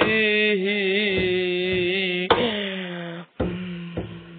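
A man singing, holding one long note that wavers in pitch. About two seconds in there is a sharp click, after which the held tone goes on more faintly, broken by a few low thumps.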